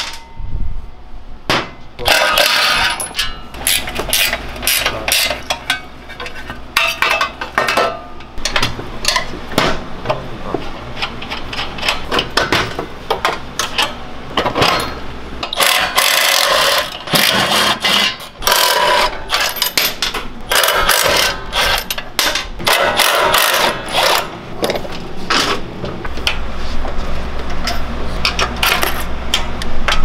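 Hand tools at work on a mini bike's bolts: metal clinks and knocks of wrenches and a ratchet, and loose nuts and bolts clattering as they are set down. The clicks come in irregular clusters with short busier stretches.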